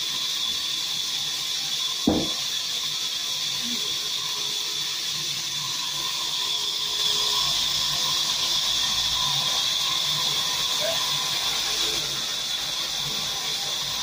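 Sawmill band saw running with a steady high-pitched whine and hiss, getting louder for several seconds in the middle as timber is fed through it. A single heavy thump sounds about two seconds in.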